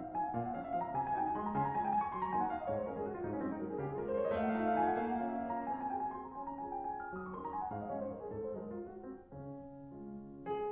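Piano music playing quick runs of notes up and down the keyboard.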